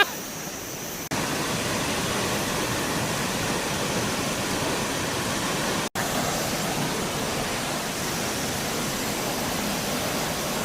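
Steady rushing of water falling at Haew Narok waterfall. It gets louder about a second in and cuts out for an instant about six seconds in.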